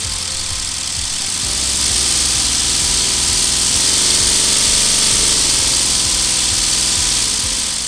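Six-cylinder Lego Technic pneumatic engine running on compressed air: a loud steady hiss of exhausting air over a fast rattle of the pistons. Its sound swells up through the middle and eases back down near the end.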